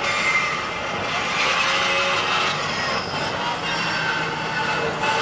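Racing car engines running on the circuit, with engine notes rising and falling over a steady wash of noise.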